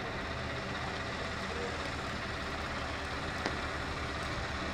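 Steady outdoor background noise with a low rumble, and one short sharp click about three and a half seconds in.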